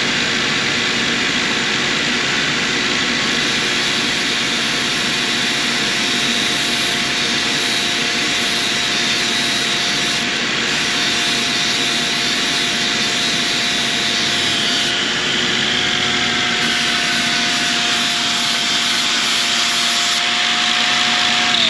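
Power grinder running steadily with a grinding hiss and a high whine, then switched off and winding down near the end.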